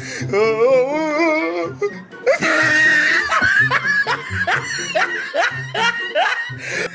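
Background music with a steady beat and laughter over it, with a wavering pitched call in the first two seconds.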